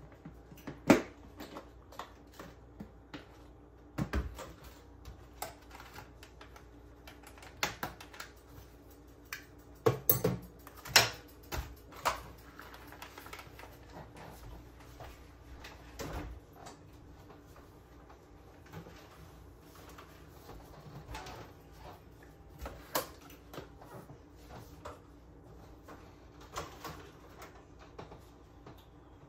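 Irregular clicks, taps and knocks of plastic food containers and lids being handled and set down on a kitchen counter, a cluster of louder knocks about ten to twelve seconds in.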